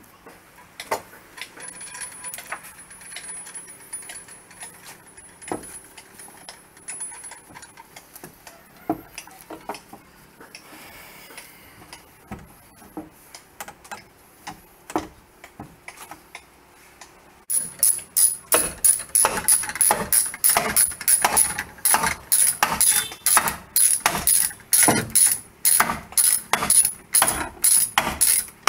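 Scattered quieter knocks and taps of timber being handled. About two-thirds of the way in, a ratcheting hand drill starts up with a loud, regular run of sharp ratchet clicks, about two to three a second, as it bores into the boat's wooden plank.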